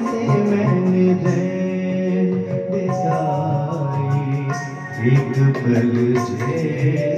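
Live Indian light-classical song: a man singing into a microphone, accompanied by keyboard and tabla, with long held notes.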